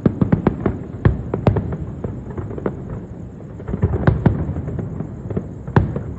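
Fireworks going off: a rapid, irregular string of bangs and cracks over a low rumble, thinning briefly around the middle and then picking up again.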